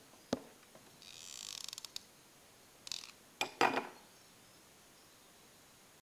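Close handling of small glitter-foam craft pieces. There is a sharp click, then a rasping scrape of about a second broken by fast ticks, and a few sharp clicks and rubs about three seconds in.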